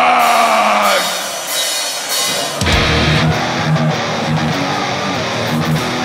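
Heavy metal band playing live: a long falling note dies away in the first second, then about two and a half seconds in the band comes in with a distorted electric guitar riff and drums.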